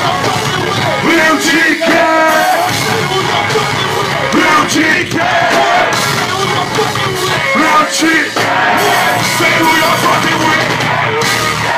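Loud live concert music from a rap-rock show, with a vocalist yelling and singing over the band.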